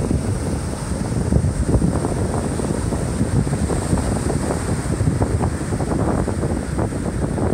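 Wind buffeting the microphone with a steady, gusty rumble, over the wash of small waves breaking on a sandy beach.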